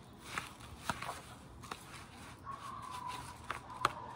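A fork scraping and clicking against a plastic container as it stirs a crumbly oatmeal and brown sugar mixture. A faint drawn-out animal call sounds in the background about midway.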